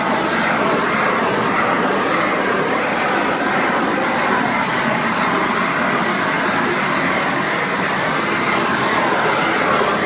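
An 18,000 BTU propane shrink-wrap heat gun running steadily, its flame blowing to heat and shrink the wrap film. The noise is loud and constant, with no breaks.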